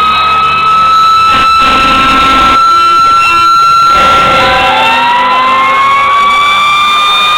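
Fire truck sirens wailing loudly. One siren holds a high, nearly steady pitch, and about four seconds in a second siren starts winding up, its pitch rising to meet the first.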